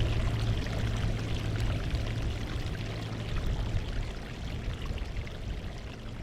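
Sea water washing and trickling over coastal rocks, with small splashes over a steady low rumble, gradually getting quieter.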